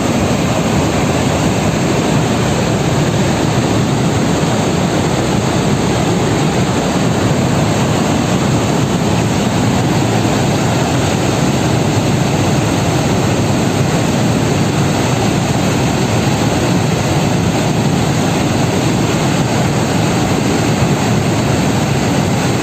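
Loud, steady rushing of a river in flood, the Thamirabarani in spate, cutting off suddenly at the end.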